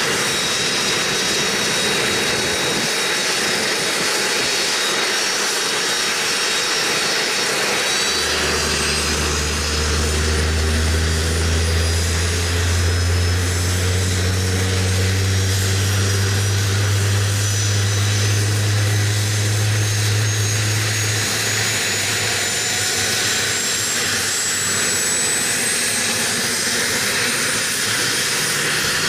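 Sikorsky Seahawk helicopter's turboshaft engines spooling up on the ground: a steady turbine hiss and whine, with a high whine rising steadily in pitch from about a quarter of the way in as the rotors begin to turn. A deep hum joins for several seconds in the middle.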